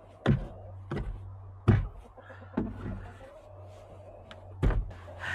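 An axe striking hardened chicken-coop deep litter of straw and pine shavings, chopping the compacted bedding loose. Five sharp strikes at uneven intervals, four in the first three seconds and the last after a pause.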